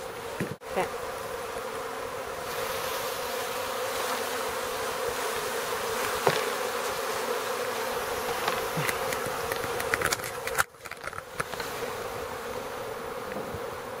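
Steady buzzing of a large mass of honey bees, a wild colony stirred up as it is brushed from its nest into a hive box. The drone cuts out briefly twice.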